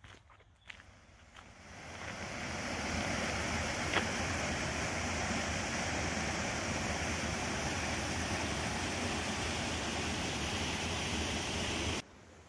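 A few footsteps, then from about two seconds in the steady rush of creek water running through a jam of fallen trees, which cuts off suddenly near the end.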